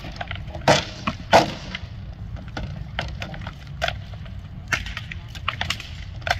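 Weapons striking shields and armor in armored combat: a series of sharp wooden knocks, the two loudest a little under and a little over a second in, with more scattered through the rest.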